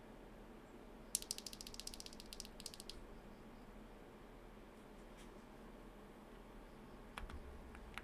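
A loose mechanical keyboard switch worked in the fingers, giving a fast run of small plastic clicks, about ten a second, for roughly two seconds. Near the end a soft knock on the desk or keyboard and a couple of light clicks.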